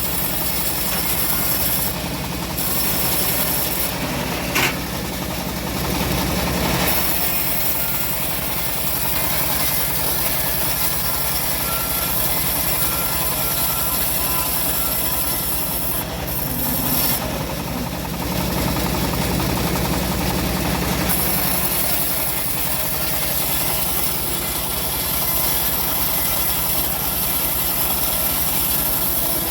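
Homemade bandsaw sawmill running steadily through old teak, a machine drone with a hiss from the cut. There is one sharp knock about four and a half seconds in.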